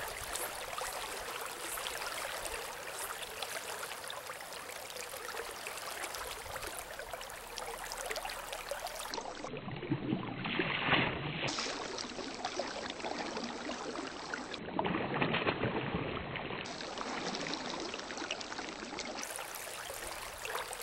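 Steady rushing of a flowing river, swelling louder twice for a second or two around the middle.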